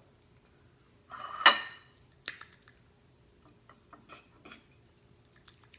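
Metal fork scraping and clinking on a ceramic plate while raw chicken is rubbed over it: one loud ringing scrape about a second and a half in, then a sharp click and a few lighter taps.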